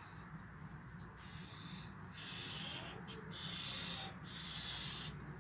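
Marker pen drawing lines on a paper calendar: a series of separate scratchy strokes, each lasting under a second, with short pauses between them.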